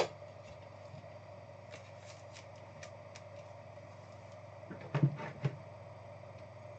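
Trading cards and plastic card sleeves being handled: scattered light ticks and rustles, then a few quick knocks on the table about five seconds in.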